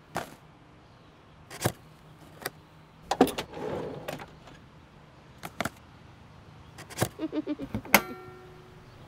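Cabinet doors and a drawer being handled: a string of sharp clicks and knocks, a drawer sliding out about three seconds in, a quick run of small clicks near the end, then a loud click with a brief ringing.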